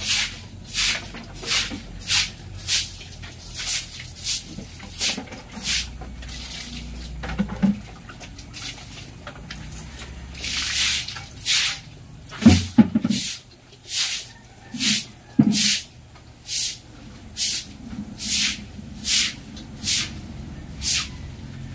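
Rhythmic swishing strokes of a stiff broom sweeping a wet floor, about one and a half strokes a second with one longer stroke partway through, and a few short low thuds in between.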